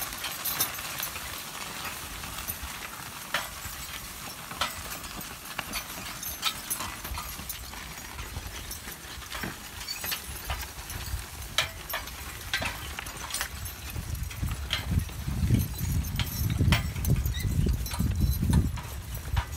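Team of three draft horses pulling a horse-drawn riding plow: hooves thudding on soft ground, with irregular clinks and knocks from the harness and plow. A louder low rumble builds in the last few seconds.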